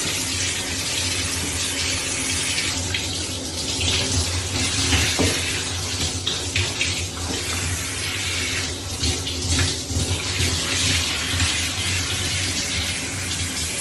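Water running steadily from a tap into a sink or tub.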